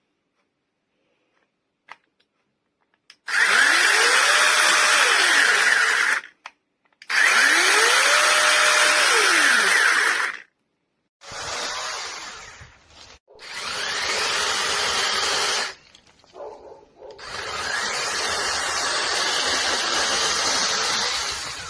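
Cordless brushless 8-inch mini chainsaw running in five bursts. The first two are short and loud, each with a whine that rises as the motor spins up, holds, then falls as it winds down. Three quieter, longer runs follow.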